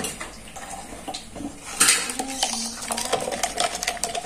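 A spoon stirring instant coffee in a plastic cup: a brief louder scrape about two seconds in, then a fast run of small clicks and scrapes against the cup.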